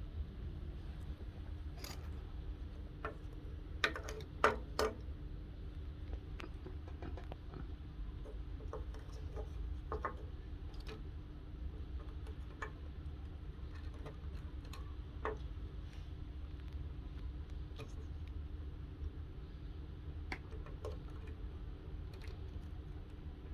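Scattered small clicks and snaps of plastic Gundam model kit parts being handled and fitted, with a cluster of louder clicks about four seconds in, over a steady low hum.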